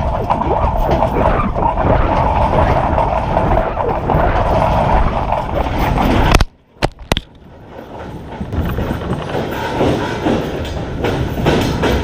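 ATV engine running hard as it climbs a steep, rocky driveway towing a cultipacker and disc chisel plow, with rolling tyre and implement noise over loose rock. The sound cuts off abruptly about halfway through, then a quieter, rougher rumble builds back up.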